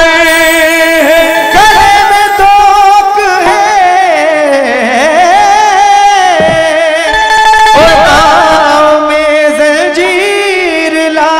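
Qawwali: a male lead voice sings long, ornamented notes that slide and bend up and down, over steady harmonium accompaniment.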